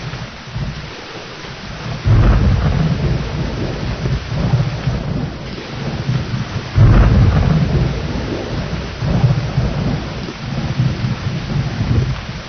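Thunderstorm: steady heavy rain with rumbling thunder. A loud rumble breaks in about two seconds in and another just past the middle.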